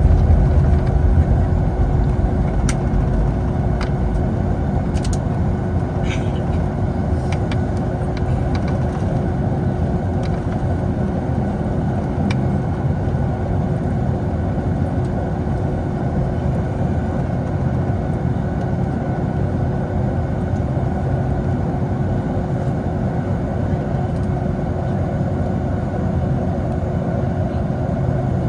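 Boeing 757 cabin noise: the steady drone of the engines and rushing air, with a constant hum. It is a little louder in the first couple of seconds, then holds level, and a few faint clicks come in the first several seconds.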